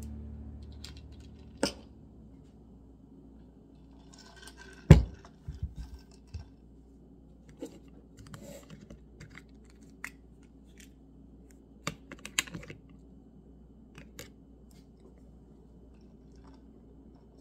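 Plastic pill-organizer lids clicking open and shut as she handles the compartments, in scattered sharp clicks and taps. The loudest click comes about five seconds in, and a quick cluster follows near twelve seconds.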